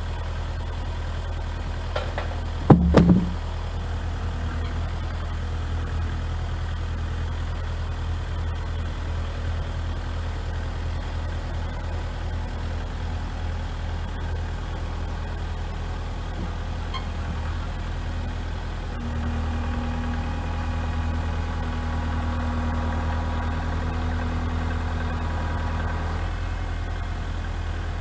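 Kubota L4701 tractor's diesel engine running steadily at idle, with one loud clunk about three seconds in. It runs louder and higher for several seconds past the middle, as if under hydraulic load.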